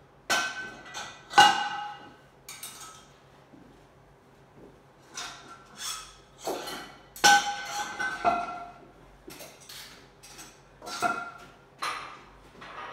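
Metal weight plates clanking and ringing as they are lifted off the floor and racked, a series of sharp knocks scattered through, the loudest about a second and a half in and again about seven seconds in.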